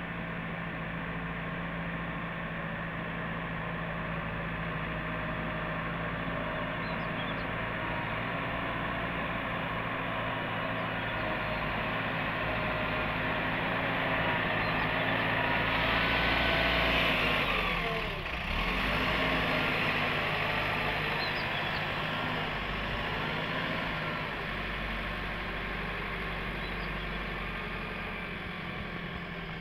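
JCB backhoe loader's diesel engine running under load as the machine pushes earth with its front bucket. It grows louder toward the middle, the revs drop sharply about two-thirds of the way through, then it picks up again and runs steadily.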